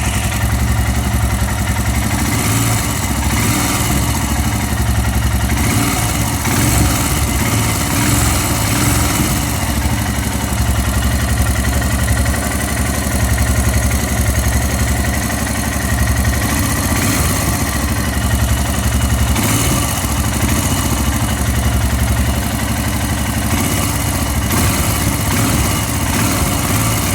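Royal Enfield Himalayan single-cylinder motorcycle engine idling, with small rises and falls in speed. The engine is new and 150 km into its break-in.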